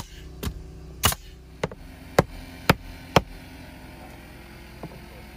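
Pneumatic nail gun firing nails into the wooden seawall boards: about seven sharp shots, roughly two a second, over the first three seconds, then it stops. A steady low machine hum runs underneath.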